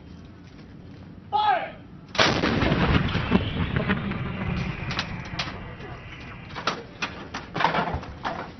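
An M777 155 mm towed howitzer fires: one sharp blast about two seconds in, followed by a long low rumble that fades over several seconds. A crew member shouts just before the shot and again near the end.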